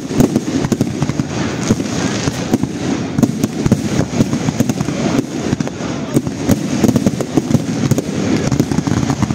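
Fireworks display: a rapid, continuous volley of bangs and crackling reports, many per second, with no pause.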